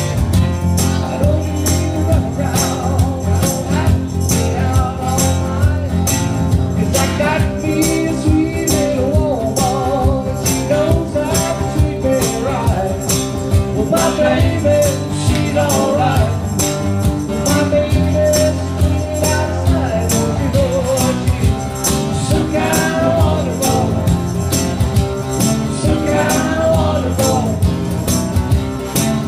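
Live band playing a song: electric bass and keyboard, with a tambourine shaken on the beat and a voice singing over it.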